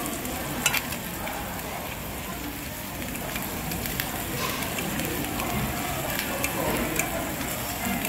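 Thin slices of beef sizzling steadily on a small ridged grill pan, with sharp clicks of metal tongs against the meat and pan, the loudest about a second in.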